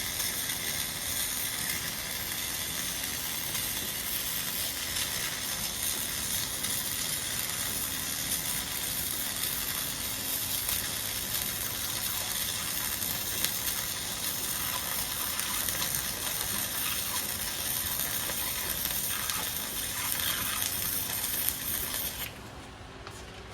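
Flux-core wire-feed welding arc running with a steady sizzle through a 3F (vertical fillet) weld pass. It cuts off suddenly about 22 seconds in when the arc is broken.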